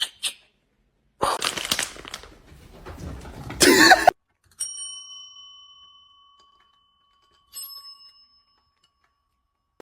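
A few seconds of rustling and clattering, then a small metal bell is struck twice, about three seconds apart, each ring fading slowly.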